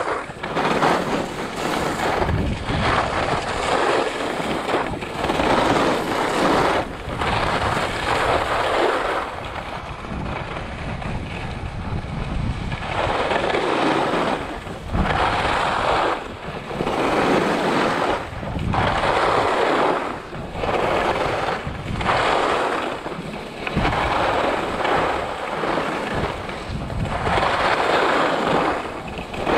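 Skis carving turns on groomed, packed snow: a scraping hiss that swells with each turn, about every one and a half to two seconds, over a low rumble of wind on the microphone.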